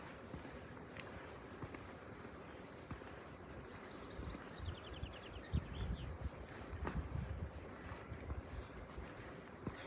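Crickets chirping in a steady rhythm of short, high chirps, about two a second, over outdoor background hiss. There is a brief descending trill about five seconds in, and some low thuds through the middle.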